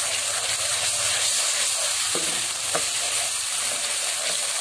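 Spice masala with yogurt sizzling in hot oil in a nonstick pan while a wooden spoon stirs it through, the bhuna stage of frying the masala. A steady sizzle, with a couple of light knocks about two and three seconds in.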